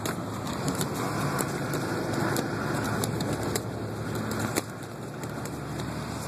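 Safari truck driving, heard from inside the passenger cabin: a steady rumble of engine and road noise with frequent sharp clicks and rattles, a little quieter from about four and a half seconds in.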